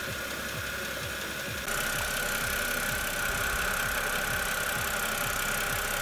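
BMW E92 328i's inline-six engine idling, with a faint steady high whine from the power steering, now almost completely gone after a fresh fluid change. The sound gets a little louder about two seconds in.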